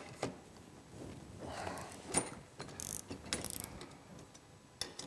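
Irregular metal clicks and short scrapes from a hex key working the Allen-head bolts of an adjustable snowmobile handlebar riser.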